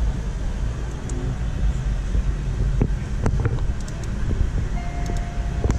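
Low, steady rumble of wind buffeting the camera microphone, with a few faint clicks and a short steady tone near the end.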